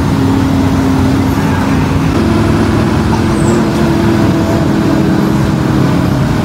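Bus engine running under way, heard from inside the driver's cab over road noise, its note stepping up in pitch about two seconds in.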